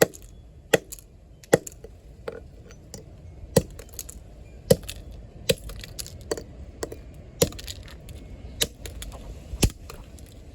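Hammer striking the plastic and glass body of a broken flip phone: about a dozen sharp cracking blows, irregularly spaced about a second apart, as the phone's top half is knocked apart.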